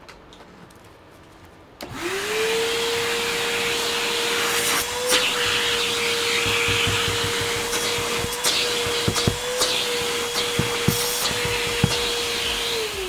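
Vacuum cleaner switched on about two seconds in, its motor spinning up quickly to a steady whine over a rush of air, with scattered short clicks and knocks from the hose nozzle. It is switched off just before the end, its pitch starting to fall as it winds down.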